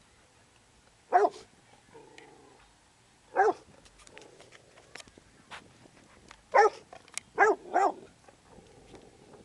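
Young rottweiler pup barking: five loud barks, two spaced apart and then three close together near the end.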